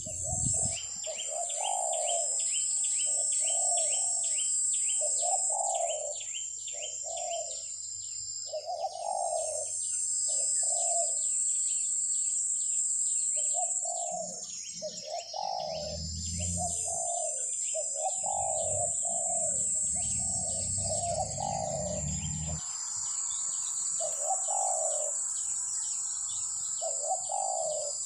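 Doves cooing in short, repeated phrases, one after another, over a steady high-pitched drone and rapid ticking of insects.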